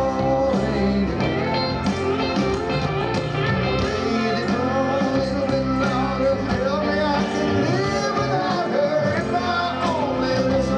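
Live rock band playing with electric guitars and bass under a male lead vocal, heard from the audience.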